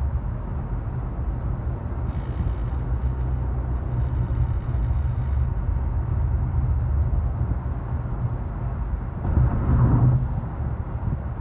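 Steady road and engine rumble inside a 2018 Honda Accord's cabin while driving, with a louder swell about nine to ten seconds in.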